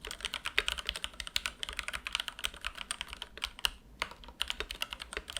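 Fast typing on a fully built Press Play Orbiter67 65% mechanical keyboard fitted with Jwick Black linear switches. It is a quick run of keystrokes with short pauses about three and four seconds in.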